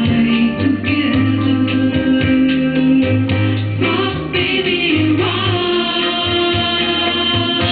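A woman singing a song live into a handheld microphone over band accompaniment with bass and guitar; other female voices join in.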